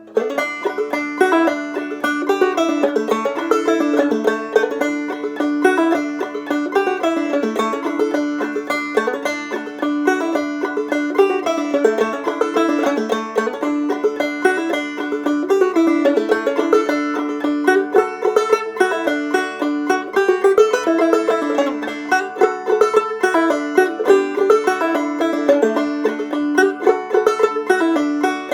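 Five-string banjo played clawhammer style: a quick, steady old-time tune of plucked notes over a recurring drone note, starting abruptly.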